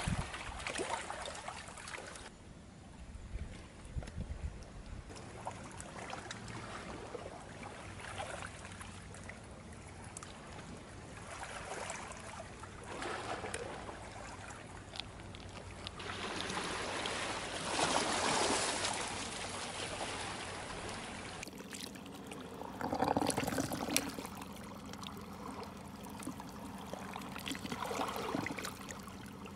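Seawater washing and trickling along the shore, swelling up several times, loudest about eighteen seconds in.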